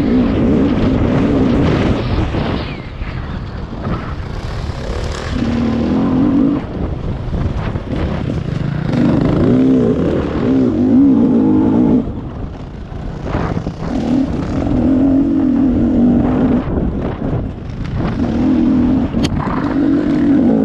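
Rieju MR 300 Pro two-stroke enduro motorcycle engine under load, the throttle opened in about five bursts with the pitch rising and falling between them as the bike is ridden over a dirt track.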